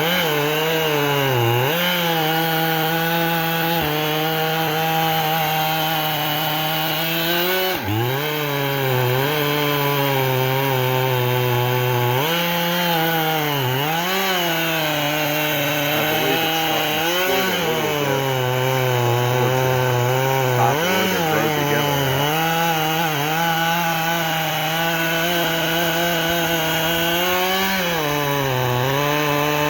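Two-stroke chainsaw running at high speed and cutting wood, its engine note dipping briefly and recovering every few seconds.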